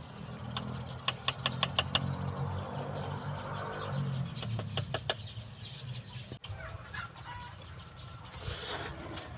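A metal spoon clinking and scraping against a metal pot of cooked rice, with a quick run of about seven sharp clicks early on and a few more a few seconds in, over a low steady hum. Near the end, chickens clucking.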